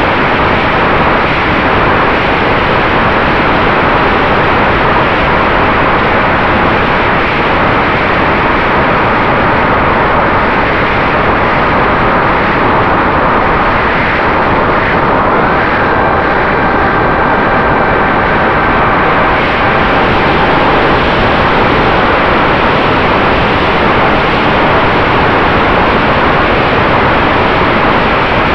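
Wind rushing over an onboard camera on a Ritewing Mini Drak FPV flying wing in fast flight, with the faint whine of its electric motor underneath. The whine steps up in pitch about halfway through as the throttle changes.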